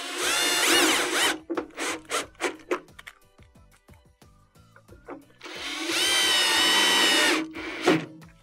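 Cordless drill/driver with a Phillips bit driving screws into a refrigerator door's center hinge. The motor whines in two runs: a first of about a second, its pitch rising and falling as the trigger is worked, and a steadier run of about two seconds near the end.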